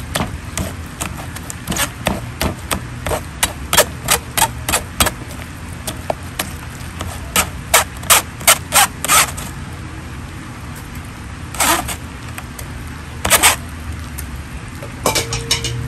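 Metal slotted ladle scraping and tapping against a stainless mesh strainer as wet blended leaf pulp is pressed through it, in a string of sharp strokes. The strokes come quickest about halfway through, with two louder ones later and a few more near the end, over a low steady hum.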